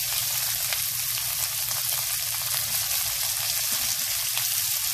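Carrot and green bell pepper strips sizzling in hot oil in a wok, a steady crackling hiss with many small pops.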